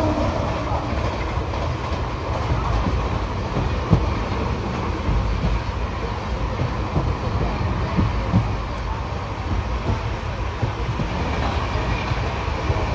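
Indian Railways passenger coach running on the track, heard from its open doorway: a steady rumble of wheels and coach, with a few sharp clicks as the wheels cross rail joints.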